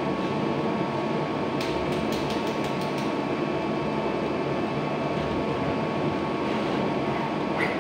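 Steady low rumble of truck engines and road traffic, with a thin steady whine over it and a quick run of light clicks about two seconds in.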